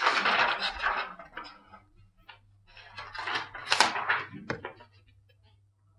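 Plastic laminating pouches and sheets of card rustling and crinkling as they are handled: a longer bout at the start and a shorter one about three to four seconds in.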